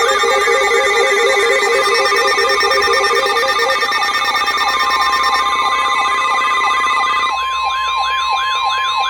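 Several electronic alarm sounds layered together under a steady, high weather-radio warning tone. Siren sweeps wail up and down over the tone, and a two-note alternating beep stops about three and a half seconds in. About seven seconds in, the siren changes to a faster, wider wail.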